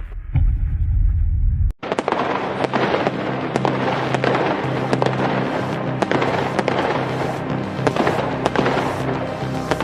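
Music used as a ringtone, with a heavy bass part that cuts out for a moment a little under two seconds in. It then goes on with many sharp, irregular firework cracks layered over it.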